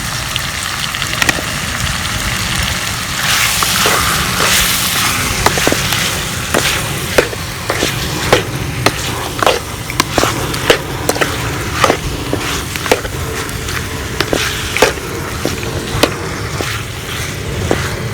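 Chicken frying in ghee in a kadai, a steady sizzle that swells into a louder hiss for a couple of seconds about three seconds in. From about six seconds in, sharp knocks come one or two a second over the sizzle.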